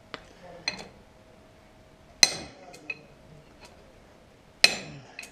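Hammer blows on a steel drift, driving a roller bearing onto an Ursus tractor's front wheel stub axle. About seven ringing metal-on-metal strikes come at irregular intervals, the hardest about two and four and a half seconds in, as the bearing goes on tight.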